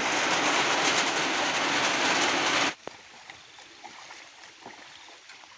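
Heavy rain pouring down in a steady rush, which cuts off abruptly about two and a half seconds in, leaving only faint scattered clicks.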